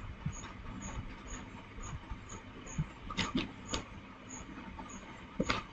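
Small clicks and taps of a hand tool and fingers working on a canvas board on a table, a few sharper knocks a little past three seconds in and near the end, over a faint regular ticking about twice a second.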